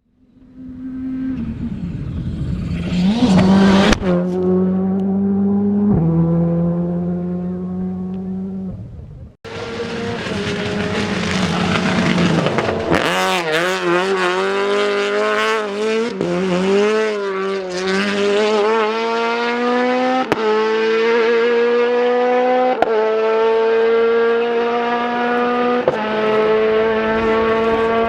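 Ford Escort rally car engines at full throttle, each climbing in pitch and dropping back at every upshift, every two to three seconds. After an abrupt cut about nine seconds in, a second car's revs waver up and down for several seconds, then it pulls steadily up through the gears.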